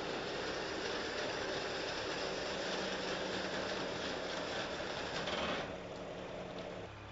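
Mercedes G-Class tyres rolling slowly down a steep ribbed steel ramp: a steady, rough rolling noise over a low engine hum. The rolling noise stops abruptly about five and a half seconds in, leaving a quieter hum.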